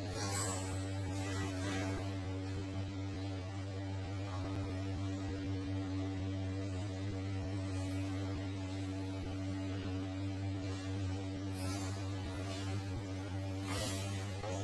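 A steady low electrical hum with a stack of overtones, unchanging throughout, with a few faint clicks near the start and near the end.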